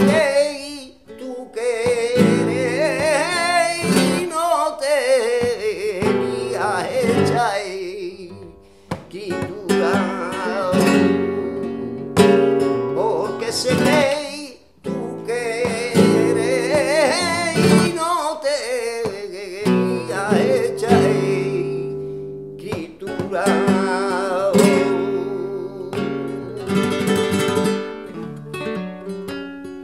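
A man singing flamenco cante in long, wavering, ornamented phrases, accompanying himself on a flamenco guitar. Near the end the voice drops out and the guitar carries on alone with strummed chords.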